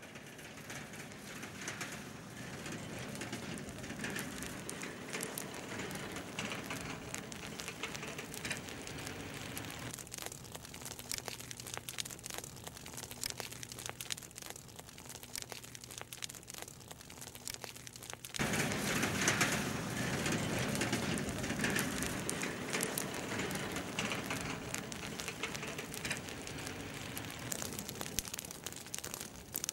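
Narrow windrows of harvest chaff and straw burning in a stubble paddock: a dense, steady crackling and popping of many small fires, suddenly louder about two-thirds of the way through.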